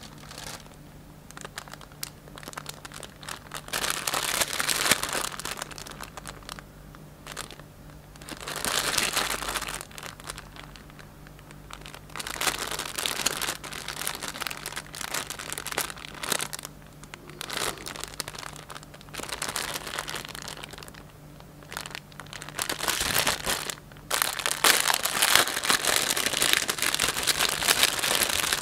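Clear plastic bag of makeup brushes crinkling as hands handle it, in repeated bursts of rustling that get louder and busier near the end.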